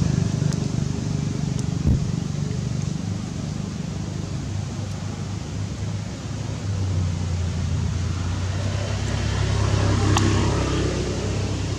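Steady low rumble of a motor vehicle engine running, with one short thump about two seconds in.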